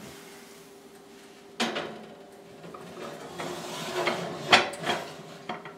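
Covered clay bakers being loaded into an oven: a sudden knock about a second and a half in, then the ceramic dishes scraping and clunking onto the metal oven rack, with the sharpest clunk about halfway through.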